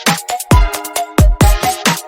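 Electronic dance music with a fast, punchy beat: deep kick drums that drop in pitch, sharp snare-like hits and a repeating synth melody.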